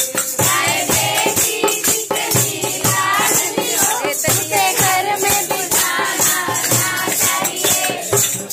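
Voices singing a Ganpati bhajan, a devotional song to Ganesh, kept in time by steady hand claps and shaken rattle-type hand percussion, several strokes a second.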